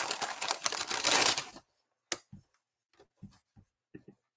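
Parchment paper lining a tray of brittle pecan candy crinkling and rustling as the tray is handled, stopping after about a second and a half. A few scattered soft clicks follow.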